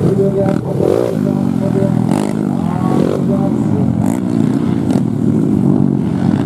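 Several dirt bike engines revving up and down as the riders work through the enduro track, the pitch rising and falling every second or so, with a few short clicks in between.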